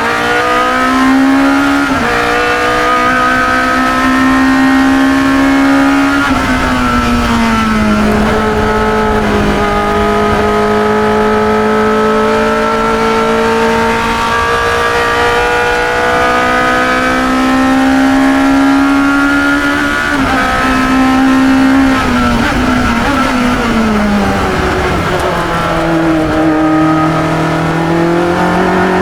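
1972 Chevron B21 two-litre sports racer's engine heard onboard at racing speed, climbing in pitch through the gears with sudden drops at the upshifts. It falls in pitch twice while the car slows for corners, then climbs again.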